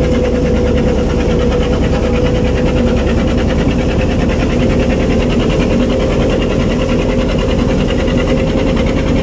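Engine of a small wooden boat running steadily under way, heard from on board: an even drone with a constant hum and a low rumble beneath.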